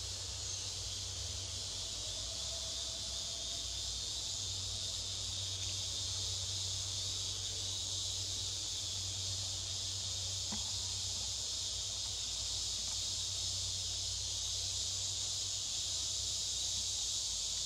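A steady, high-pitched insect chorus drones without a break over a low, steady hum, with one faint click about ten and a half seconds in.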